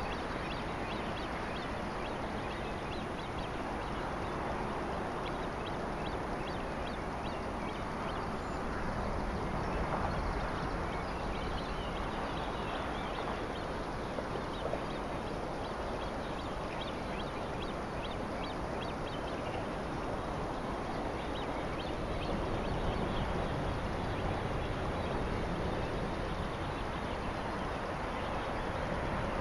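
Lake water splashing and lapping right at a camera held at the surface while swimming: a steady rush with many small droplet splashes.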